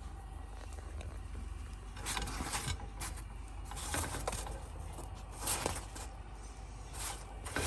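Kitchen handling noises: a handful of short scrapes and rustles at irregular intervals, over a steady low hum.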